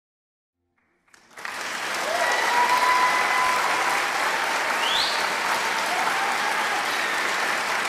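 Large theatre audience applauding, starting about a second in after silence, with a few cheers over the clapping.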